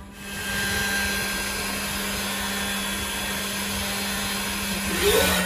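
Ringmaker CNC jewelry milling machine running, its high-speed spindle and cutter engraving a background pattern into a ring: a steady whirring with a steady hum beneath. A rising whine comes in near the end.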